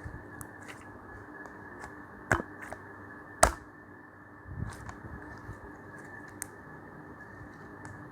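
Homemade slime being handled, with scattered small clicks and two sharp pops, about two and three and a half seconds in, over a steady background hiss.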